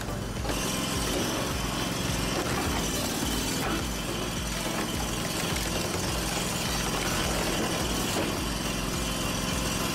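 Small air-cooled engine of a firewood processor running steadily, driving the hydraulic splitter, with a few sharp cracks as logs split on the wedge grid.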